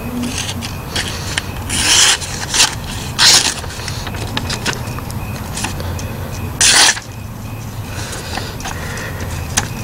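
A Blind Horse Knives Bushcrafter knife blade slicing through a sheet of printer paper in a few short hissing strokes, the loudest near two seconds in, a little after three seconds, and near seven seconds, with small ticks of paper between them.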